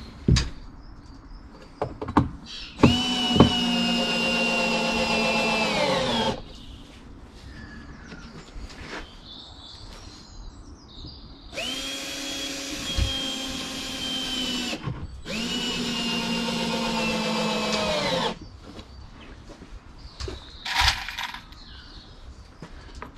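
Cordless drill-driver driving screws into a wooden box frame: three runs of a steady motor whine a few seconds each, the last two nearly back to back, each sagging in pitch as the motor winds down. Between the runs come a few knocks and clicks from handling the wood and tool.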